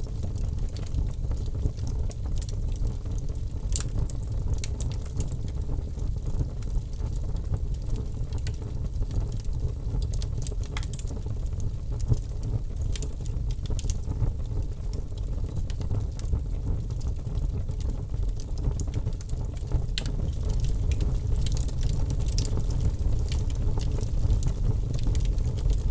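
Wood fire burning, a steady low rumble with scattered sharp crackles and pops.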